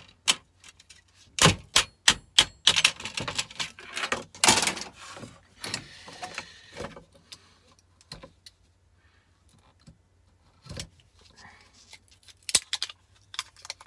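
Sharp clicks and clatter of tools and small metal parts being handled while components on a scrap circuit board are cut and stripped for their metal.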